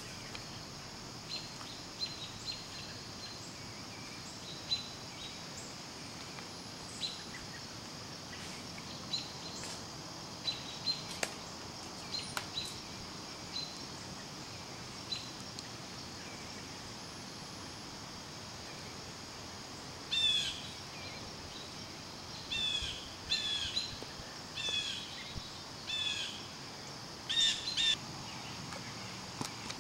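Woodland birds chirping over a steady high hiss: short scattered chirps, then from about two-thirds in a bird gives a run of louder calls, each note falling in pitch, about once a second.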